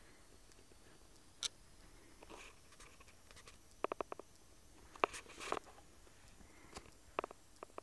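Small push buttons on a handheld diagnostic unit clicking as they are pressed to step through its LCD menu: scattered sharp clicks, with a quick run of four about four seconds in, and faint rustle of the hand on the plastic case.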